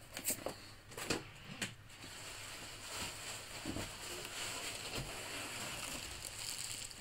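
A few light knocks of cardboard being handled, then steady rustling and crinkling of a plastic bag and packing as a wrapped telescope is lifted out of its cardboard box.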